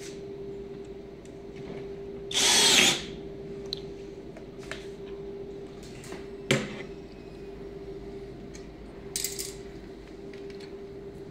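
Cordless drill/driver running in a short burst of about half a second to drive a screw, then a sharp knock a few seconds later and a second brief burst near the end. A steady hum runs underneath.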